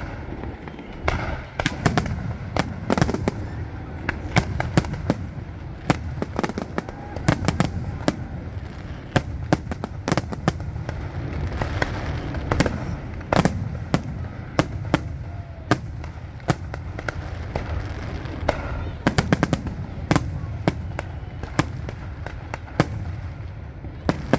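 Fireworks display: a steady barrage of sharp shell bursts and crackles, many irregular bangs a second over a low rumble.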